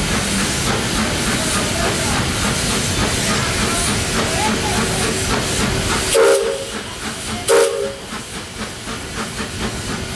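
Narrow-gauge steam locomotive running with a steady hiss of steam and exhaust, heard close up from the boiler top. Its steam whistle gives two short toots a little over a second apart, just past the middle.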